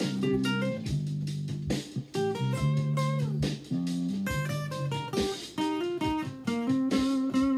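Solo acoustic guitar playing a blues: plucked bass notes ringing under changing higher notes and chords, in a steady unbroken run.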